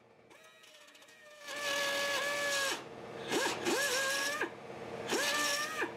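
Cordless narrow belt file sander run in three short bursts of about a second each, grinding the edge of a drilled-out hole in sheet steel to enlarge it. The motor's whine sags in pitch and recovers as the belt bites into the metal, under a hiss of grinding.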